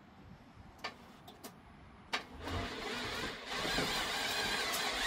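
Starter being tried on an LS-swapped engine: a few light clicks, then about two seconds in a sudden, louder, sustained mechanical whir with a wavering whine.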